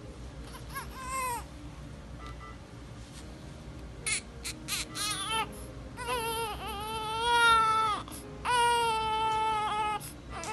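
Newborn baby crying: a short cry about a second in, a run of short choppy cries around four seconds in, then two long wavering wails, the loudest peaking about seven seconds in.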